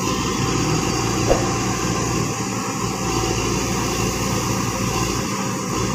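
XGMA crawler excavator's diesel engine running steadily as it digs, with one short sharp knock about a second in.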